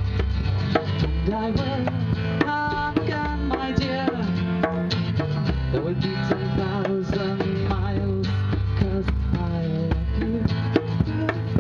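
Live acoustic folk music: a strummed acoustic guitar over a steady bass line with a hand drum tapping out frequent strokes, and a singing voice carrying the melody.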